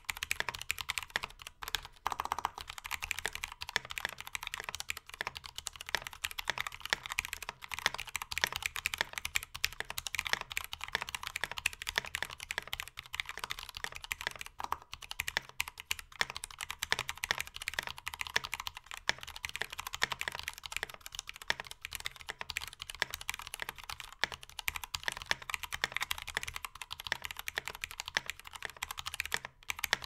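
Steady, continuous typing on a Freebird60 mechanical keyboard with stock Cherry MX Black Hyperglide linear switches in a brass plate with no plate foam, under mStone Cherry-profile keycaps: a dense stream of keystroke clacks.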